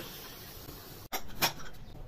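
A metal spatula scraping against the inside of an aluminium pressure cooker: two short scrapes about a second and a half in, over a faint steady hiss.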